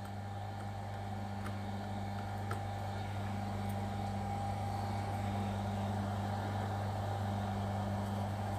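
Steady low electrical hum of bench equipment running, with a few faint light ticks in the first few seconds.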